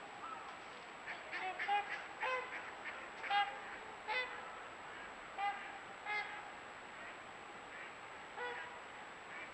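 A flock of geese honking: a dozen or so short, irregular calls, some overlapping, heard over a steady hiss.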